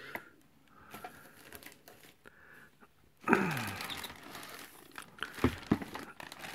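Clear plastic bag crinkling and rustling as it is grabbed and pulled out of a cardboard box, starting loudly about halfway in after a few faint handling clicks.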